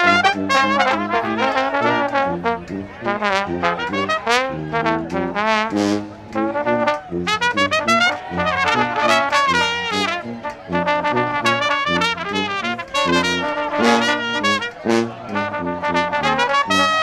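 Live brass band of trumpets, trombone and sousaphone playing a tune, the horns carrying the melody over the sousaphone's bass line of short, regularly changing low notes.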